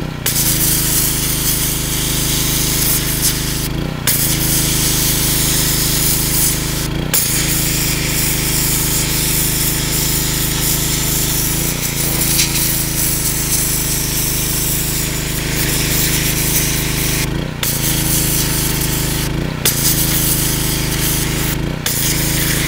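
Pressure washer jet blasting into a pumpkin, cutting away rind and flesh, over the steady hum of the pressure washer's motor. The hiss of the spray breaks off briefly about five times.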